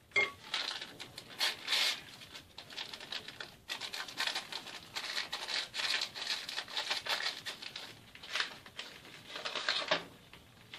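Wire-mesh sieve being shaken and tapped over a bowl to sift flour: a rapid, irregular rattling and scratching that stops about ten seconds in.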